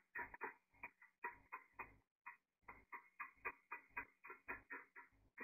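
Faint, fast, uneven clicking, about four or five clicks a second.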